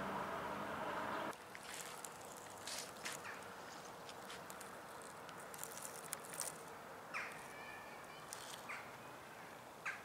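A steady droning hum cuts off suddenly about a second in. After it comes faint outdoor ambience with scattered rustles and clicks and a couple of short calls.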